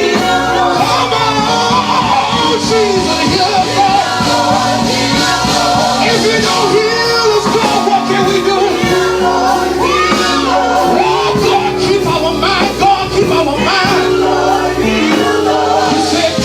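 Gospel worship music with a band and singing: sustained chords over a steady bass, with wavering sung lines.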